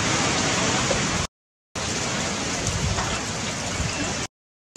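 A steady, even hiss of background noise, cut to complete silence twice for about half a second each.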